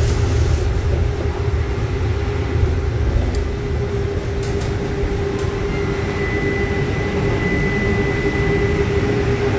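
Interior noise of a modern streetcar in motion: a steady low rumble of the car running on its rails with a constant hum over it. A thin high whine joins about six seconds in, along with a few faint ticks.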